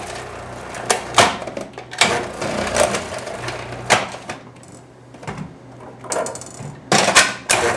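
Hard plastic clicks and knocks as the parts of a Cuisinart food processor (slicing attachment, lid and feed-tube pusher) are handled and fitted, with two sharp knocks near the end.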